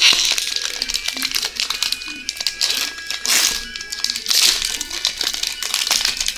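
Foil booster pack wrapper crinkling as it is torn open and handled, in uneven bursts that are loudest a little past the middle.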